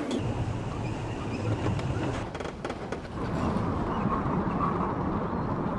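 Wind recording played through Logic Pro's Delay Designer plugin, heard as a dense rumbling rush with delayed repeats. The character shifts just after three seconds in, when the delay preset is switched.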